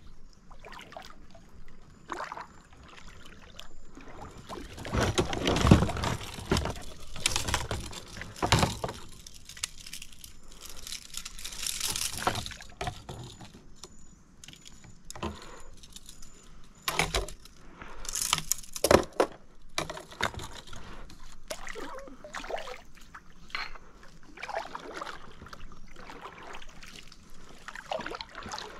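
Irregular splashing and dripping of water around a fishing kayak, with scattered knocks and small rattles as gear is handled.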